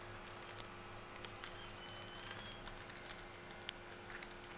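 Faint, scattered light ticks and patter of cornflour powder poured from a plastic packet onto marinated chicken in a steel bowl, over a low steady hum.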